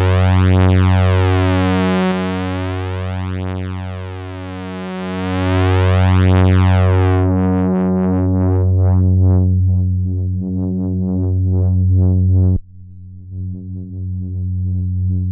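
Moog Minitaur analog bass synthesizer holding one low bass note, with a slow swirling wobble running through it. About seven seconds in the bright upper tone falls away as the filter is turned down, leaving a darker bass with faint pulsing in its top. Near the end the sound drops suddenly quieter.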